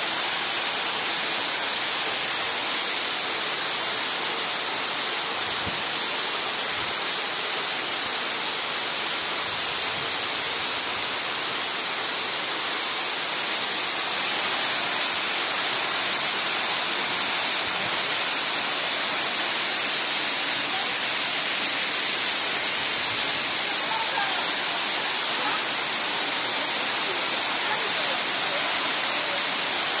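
Waterfall cascading down a rock face into a plunge pool: a steady rushing hiss of falling water.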